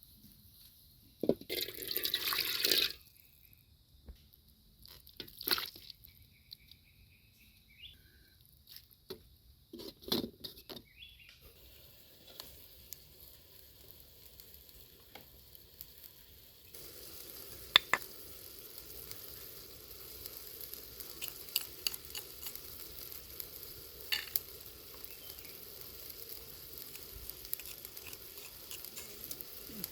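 Chicken organs frying in a pan: a steady sizzle starts a little past halfway, with scattered sharp clicks of stirring. Before that there are a few short bursts of noise, the loudest near the start.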